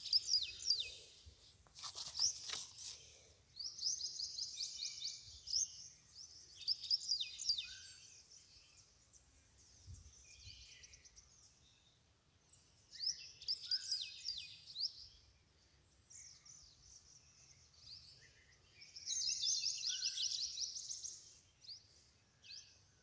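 Birds chirping in quick repeated trills, in several bursts of a second or two. There is a brief knock about two seconds in.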